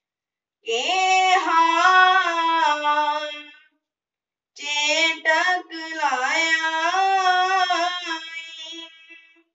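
A boy's solo voice singing a shabad, a devotional hymn, with no accompaniment. Two long melodic phrases, the second starting about a second after the first ends.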